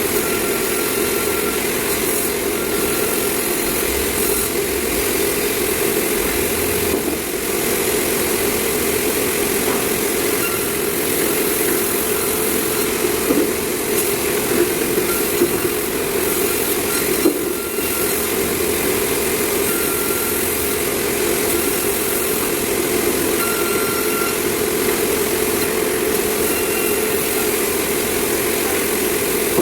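Sawmill saw machinery running steadily while cutting meranti timber: a continuous engine-like drone with a constant hiss, dipping briefly twice.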